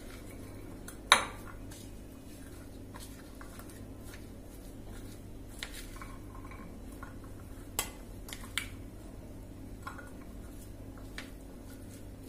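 Spatula stirring chopped vegetables and boiled groundnuts in a bowl, with scattered light clinks and knocks against the bowl, the sharpest about a second in. A steady low hum runs underneath.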